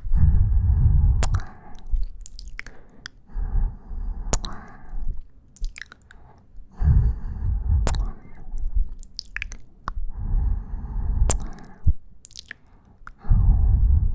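Close-miked ASMR mouth sounds: breaths on the microphone, each a low rumble of a second or two, coming about every three seconds, with wet kissing and sucking smacks between them.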